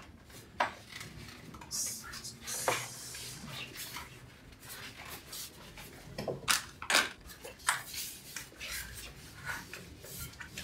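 Rubber tubeless tire bead being worked by hand onto a carbon fiber road rim: scattered knocks and clicks of tire against rim, with a longer rubbing scuff about two seconds in.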